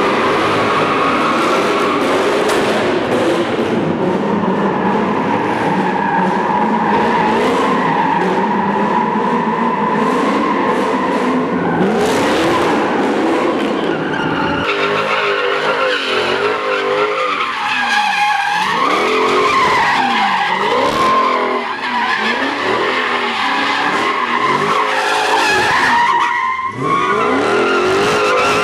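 Cars doing donuts: tires squealing continuously over engines held at high revs. About halfway through the sound changes abruptly, and the pitch then swings up and down roughly once a second as the cars spin.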